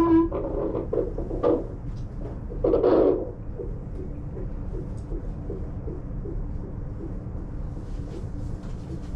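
Fetal heartbeat heard through a handheld Doppler monitor: a fast, even pulsing over a steady hum, with a few knocks and rustles in the first few seconds.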